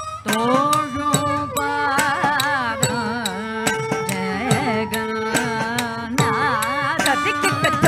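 Carnatic music accompanying Bharatanatyam dance: a sustained melodic line bending and sliding through ornamented notes, over regular percussion strokes.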